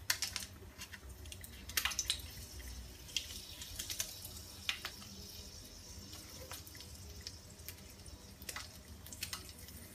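Kitchen scissors snipping dried red chillies into hot oil in a frying pan: faint, irregular snips and small clicks, over a light sizzle of the oil.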